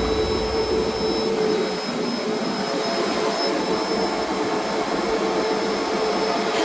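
Vacuum motor running steadily: an even rushing hiss with a faint steady whine.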